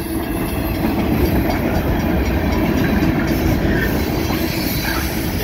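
Freight train of loaded military flatcars rolling past at close range: steady wheel-on-rail noise.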